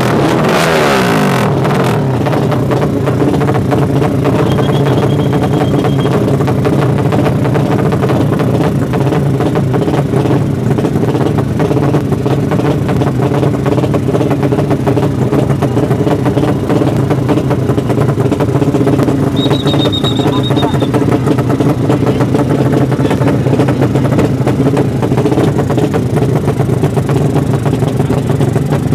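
Drag-racing motorcycle engine blipped and falling back in the first couple of seconds, then idling steadily.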